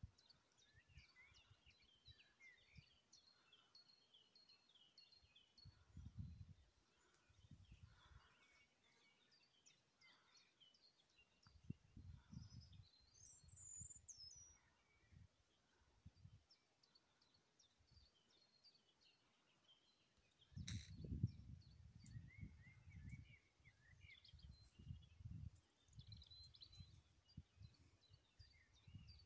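Faint birdsong: several small birds chirping and twittering throughout. Low rumbles come and go on the microphone, and a single sharp click about two-thirds of the way through is the loudest sound.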